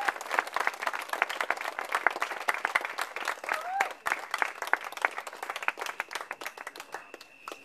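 Audience applauding, with dense clapping that thins out and dies away near the end, and a short call from the crowd twice.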